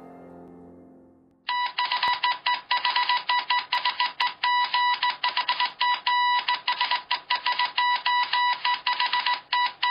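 A fading chime dies away in the first second. Then, about a second and a half in, Morse code beeping starts: one high tone keyed rapidly on and off in short and long pulses.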